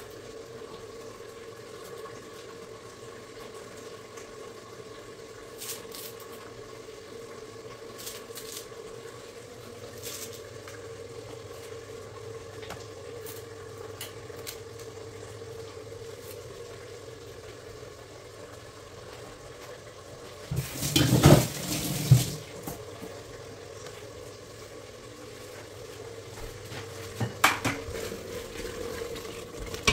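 Kitchen work over a steady hum: a knife taps now and then on a plastic cutting board. About two-thirds of the way through, kitchenware clatters loudly for a couple of seconds. Near the end a wooden spoon knocks in a steel pot.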